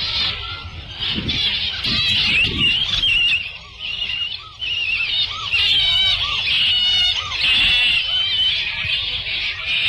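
Jungle-ride sound-effect track: many overlapping bird calls chirping and warbling high and continuously, over a low rumble in the first few seconds.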